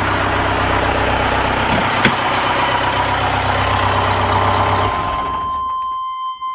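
Freshly rebuilt Cummins 4BT four-cylinder turbo diesel running steadily on its first run after the rebuild, then shut off about five seconds in and winding down. A steady high beep-like tone continues after the engine stops.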